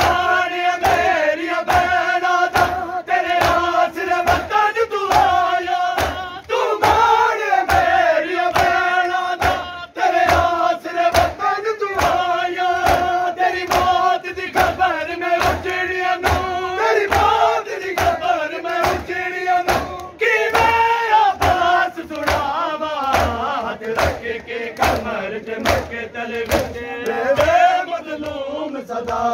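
Men performing matam, beating their bare chests with open hands in a steady rhythm a little faster than one slap a second, under a mourning chant (noha) sung by men's voices and taken up by the crowd.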